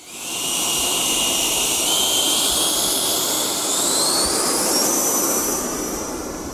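110 mm Jetfan electric ducted fan on a large RC L-39 jet running at high power for takeoff: a loud, steady rushing whine whose pitch climbs in steps about two seconds in and again about four to five seconds in as the fan spools up.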